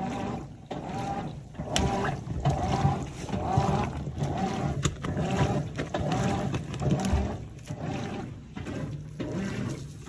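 Top-loading washing machine agitating a sudsy load: the agitator swishes the water back and forth about twice a second, each stroke a slosh of water over a mechanical whir.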